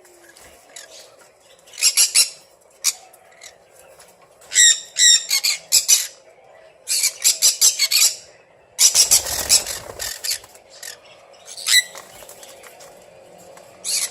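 Pet green-cheeked conures squawking in short groups of harsh, rapidly repeated calls. About nine seconds in there is a louder rustling burst.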